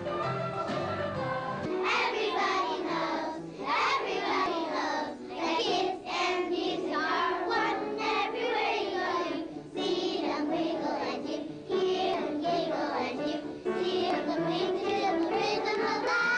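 A song sung by voices over instrumental backing; the backing plays alone for about the first two seconds before the singing comes in.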